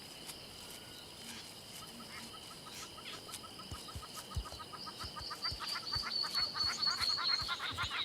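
African savanna bush ambience: a steady high insect trill, with birds calling in rapid, repeated short chirps that start about two seconds in and grow louder toward the end, and a high whistled note held through the second half.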